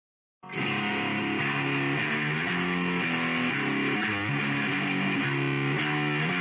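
Outro music: a distorted electric guitar track with a steady beat, starting suddenly out of dead silence about half a second in.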